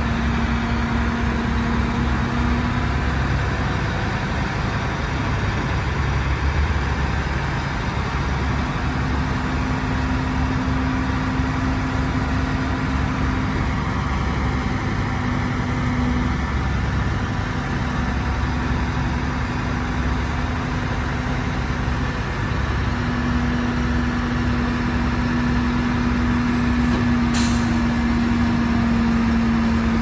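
Heavy diesel earthmoving machinery, a bulldozer and dump trucks, running steadily with a deep rumble and a steady tone that drops in and out. A brief high hiss and a sharp click come near the end.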